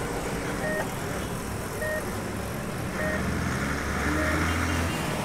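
City traffic: a steady din of road vehicles with a short beep repeating about once a second, and a low engine rumble that grows louder about three seconds in.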